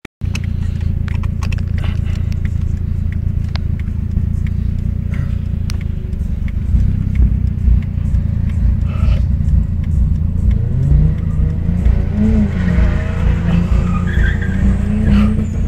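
Heavy low road and wind rumble of a car moving at speed. From about ten seconds in, a car engine revs hard under acceleration, its pitch climbing, dropping at a gear change and climbing again.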